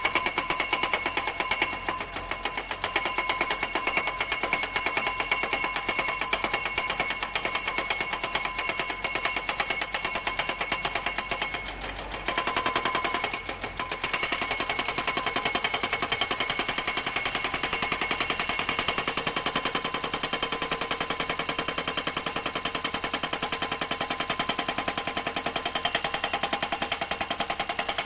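Pile driver hammering in a fast, steady stream of metal impacts, with a short break about twelve seconds in before it resumes.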